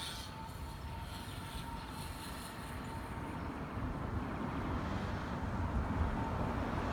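Low vehicle rumble with a faint steady whine above it, growing slowly louder over the last few seconds.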